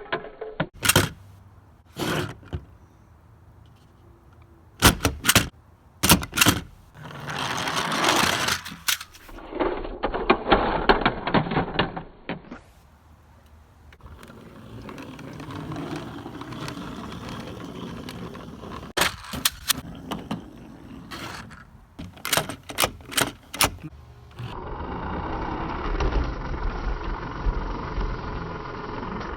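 Toys being handled: a series of sharp clicks and clacks, with stretches of rattling and rustling between them.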